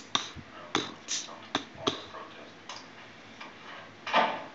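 Film soundtrack played through a TV and recorded by a phone: a run of sharp clicks or taps, about two a second, then a louder knock about four seconds in.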